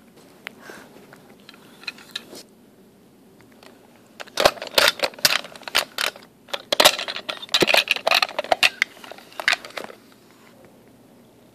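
Plastic toy pieces being handled, clattering and knocking together in a quick run of clicks and rattles. Only faint rustling comes first; the run starts about four seconds in and stops near the end.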